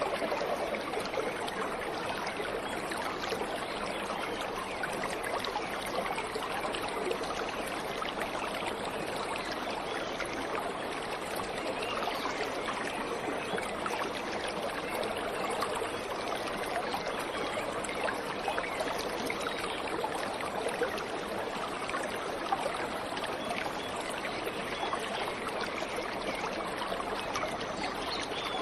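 Waterfall water running steadily: an even rush with many small splashes and trickles.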